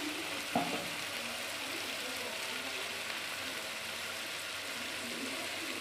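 Peas and tomatoes sizzling steadily in a hot pan, with one brief knock about half a second in.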